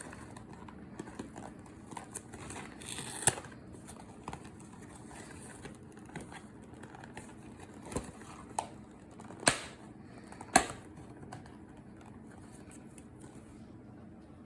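Plastic wrapping being peeled off a box of trading cards: quiet crinkling and rustling, with several sharp clicks, the loudest in the second half.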